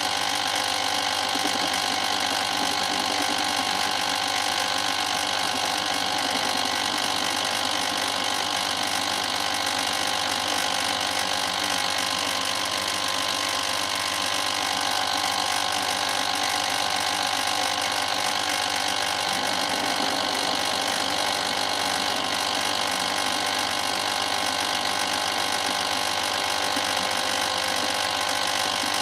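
Emco Unimat SL mini lathe running steadily, its motor, belt drive and spindle turning a small steel bar against a hand-ground cutting tool.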